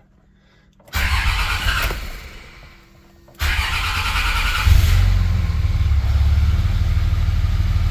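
2003 Dodge Ram's 5.9 Cummins inline-six diesel being started through a newly wired push-button starter switch: a short burst of cranking about a second in that fades out, then a second crank at about three and a half seconds that catches near five seconds and settles into a steady idle. The engine starting shows the bypass starter circuit working.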